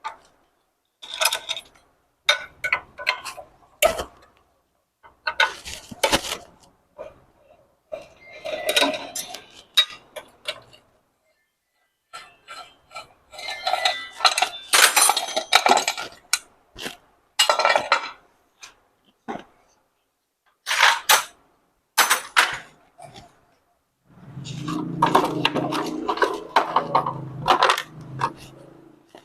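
Metal hand tools and loose engine parts clinking and clanking in irregular bursts as a motorcycle's gear lever and magnet (alternator) cover are taken off. Near the end a denser, lower, steadier sound runs for a few seconds.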